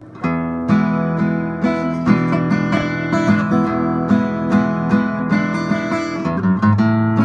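Acoustic guitar music with strummed chords in a steady rhythm, starting abruptly out of silence.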